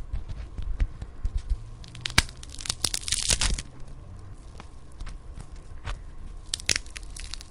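Bone-breaking sound effect: a run of sharp cracks and snaps, with a dense crunching, crackling stretch about three seconds in and another few cracks near the end.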